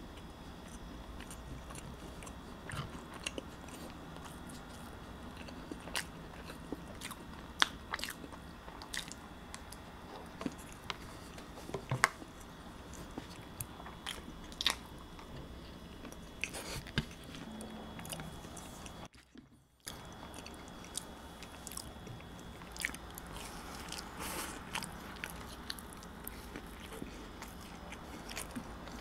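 Close-miked chewing and wet mouth sounds of eating soft chocolate cake, with many short sharp clicks scattered through. The sound cuts out for about a second just past the middle.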